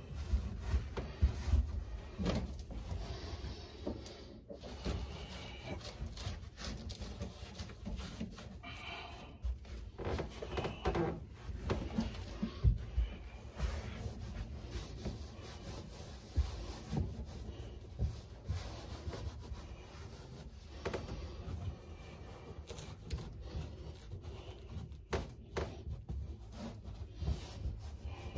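Car carpet being worked into place by hand on the floor: irregular rubbing and scraping with scattered light knocks.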